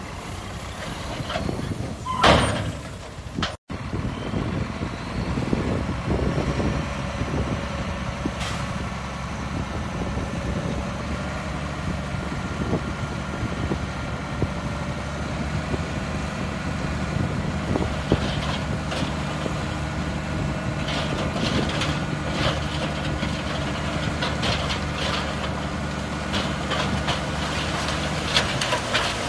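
Heavy diesel construction machine running steadily, its engine holding one note, with knocks and rattles of metal working against material over the second half.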